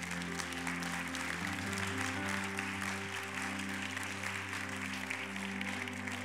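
A crowd applauding over steady instrumental music of held chords, which change about a second and a half in.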